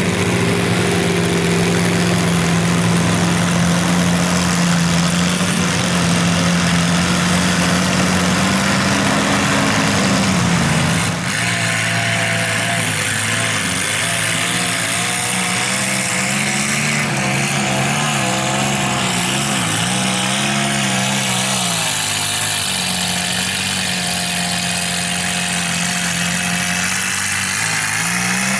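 Home-built mud truck's engine running hard at high, steady revs as it churns through a mud pit. After an abrupt break about eleven seconds in, the engine pitch wavers up and down as the throttle is worked.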